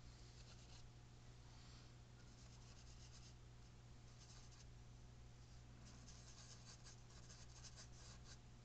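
Faint scratching of paintbrush bristles, in several short spells of quick strokes, over a steady low electrical hum.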